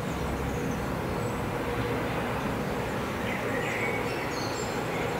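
Rumble of a freight train hauled by a pair of electric locomotives, heard from a distance and drawing nearer, with a faint steady hum. Birds chirp a few times in the second half.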